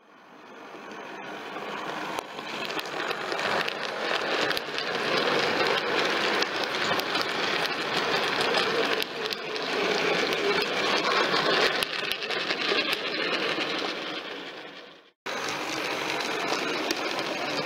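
OO gauge model train running past: the wagons' metal wheels rumble and click over the rail joints, swelling as the train nears and fading as it goes. A few seconds before the end it cuts off sharply and another model train is heard running close by.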